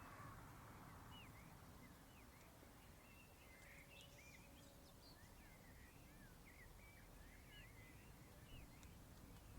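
Faint small birds twittering, many short chirps in quick succession, over a low steady background rumble of outdoor ambience.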